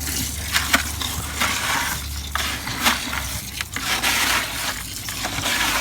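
Gritty crunching and rustling of dry concrete mix being handled, with many small irregular clicks, over a steady low wind rumble on the microphone.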